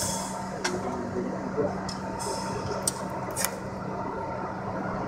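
R62A subway car standing at a station with its equipment running: a steady electrical hum with a fainter higher whine, a few sharp clicks and a brief air hiss about two seconds in.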